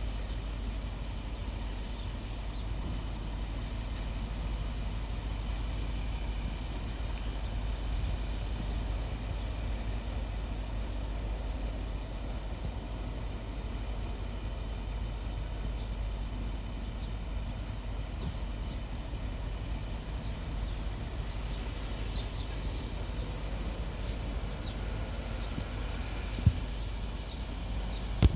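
Fire truck engine idling steadily, a low, even rumble, with a single sharp knock near the end.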